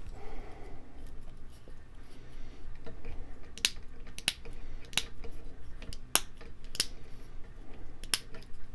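Yora 3018 plastic cable drag chain clicking under the fingers: about half a dozen sharp, irregular plastic snaps from its links and gates as it is pressed and worked along, starting about three and a half seconds in, with some faint rustling of the wires before them.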